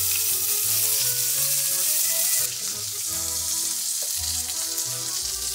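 Duck legs searing skin-side down in a hot cast-iron skillet with no oil, sizzling steadily as the fat renders from the skin. The sizzle drops a little in level just over two seconds in.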